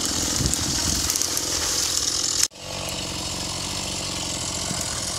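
Chainsaw running while cutting brush. It breaks off abruptly for an instant about halfway through, then runs on, slightly quieter and steadier.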